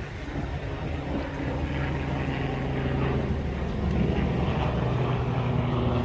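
Vehicle engine idling: a steady low drone that shifts slightly in pitch about four seconds in.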